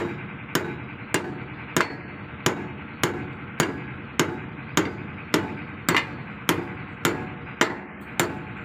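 Hammer striking a steel drift held against the hub of a marine gearbox shaft, a steady run of sharp metal-on-metal blows about every 0.6 s, some fifteen in all.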